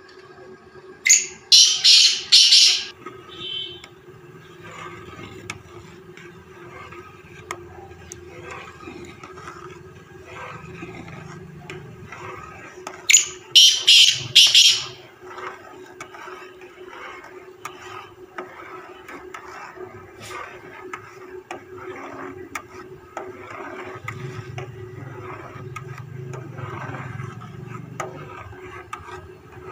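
Black francolin calling twice, about twelve seconds apart: each call is a loud run of about four short, high notes lasting a second and a half. A faint steady hum runs underneath.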